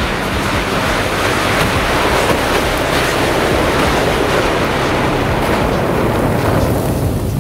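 Big fire of lighter gas and sparklers burning inside a match-built volcano: a loud, steady rushing of flame.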